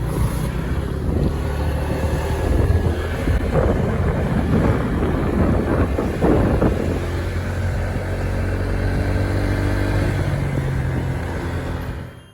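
Motorbike engine running steadily while riding, under a steady rush of road and wind noise; it fades out just before the end.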